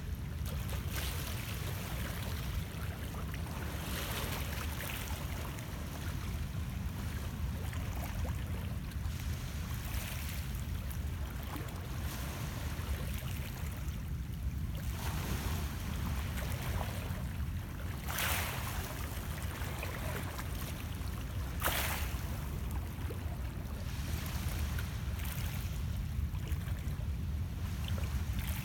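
Small waves of Lake Ontario lapping and splashing against shoreline rocks, in irregular splashes every few seconds over a steady low rumble.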